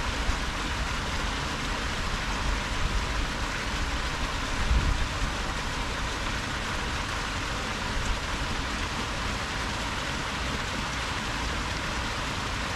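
Steady rush of flowing canal water, with irregular low rumbles of wind on the microphone, heaviest about five seconds in.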